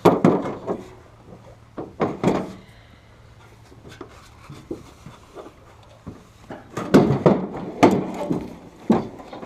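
Irregular knocks and clunks of things being handled: a few at the start, a couple about two seconds in, and a busier run of them from about seven to nine seconds in.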